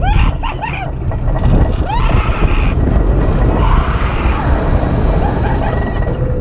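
Roller coaster ride: wind rushing over the microphone and the train's low rumble on the track. Short rising-and-falling screams from riders come at the start, about two seconds in and near four seconds.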